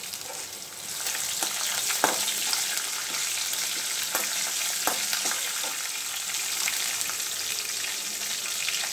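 Curry leaves, green chillies and dals sizzling in hot oil in a stainless-steel kadai. The sizzle swells about a second in, and a steel spoon stirring gives a few sharp clinks against the pan.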